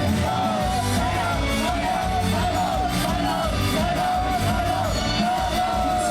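Idol pop song performed live: a woman's voice singing a curving melody over a loud backing track with a steady bass beat.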